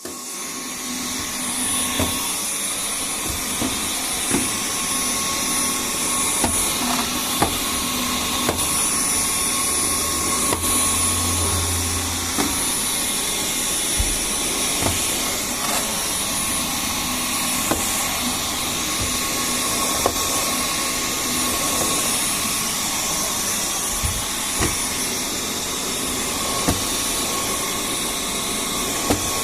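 Dyson V10 cordless stick vacuum running steadily, a continuous rushing hum with a high whine, and scattered sharp ticks throughout.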